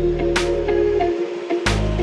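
Background music with a steady beat: sustained tones over a bass line, with sharp beat strikes about every two-thirds of a second.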